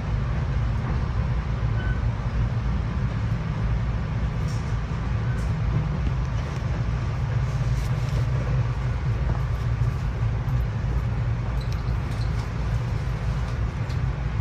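Steady low rumble of a SEPTA Regional Rail electric commuter train running on the track, heard from inside the passenger car, with a few faint light clicks.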